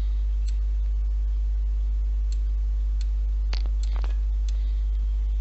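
Computer mouse clicking now and then as pieces are dragged on screen: about eight faint, scattered clicks, a few stronger ones between three and a half and four seconds in. Under them runs a steady low hum.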